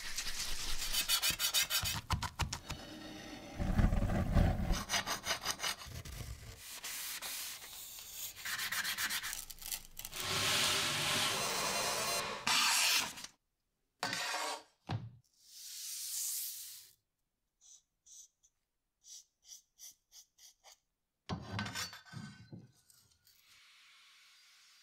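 A string of hand metalworking sounds: rhythmic rasping and rubbing strokes, a stretch of steady scraping that stops abruptly, then a few short scrapes and small high clicks separated by silences.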